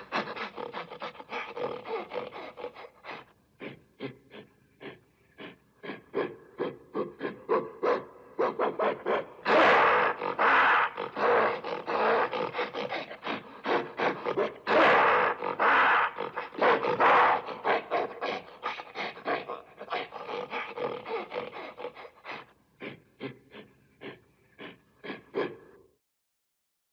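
Gorilla calling in a fast run of short, rhythmic calls, several a second, that swell twice into louder, longer calls about ten and fifteen seconds in, then stop shortly before the end.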